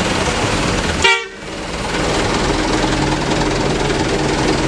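Mitsubishi Fuso Canter light truck driving slowly past with its engine running and a horn sounding. There is a sudden loud pop about a second in, then a brief dip before the steady sound returns.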